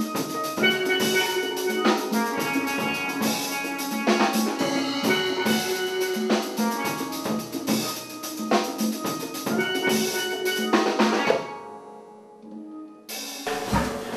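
Steel pans played fast with rubber-tipped sticks: a quick run of bright, ringing metallic notes and chords. The playing stops about eleven seconds in and the last notes ring out and fade.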